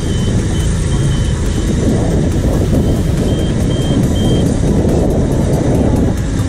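Cat AP655F asphalt paver and the dump truck feeding it, diesel engines running steadily under load while paving. A high warning beep repeats about three times a second in two short runs, near the start and again around the middle.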